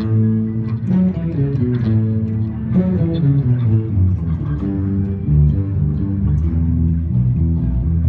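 Dozens of electric bass guitars playing a riff together through small practice amps, a massed bass section with low notes stepping from pitch to pitch.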